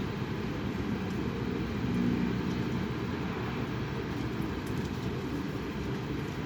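Strong wind buffeting the microphone: a steady low rumble that does not let up.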